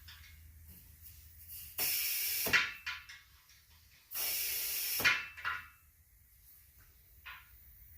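Two bursts of compressed air from an air compressor's hose, each about a second long and ending with a sharp knock, blown into a deflated tire to seat its bead and get it to take air.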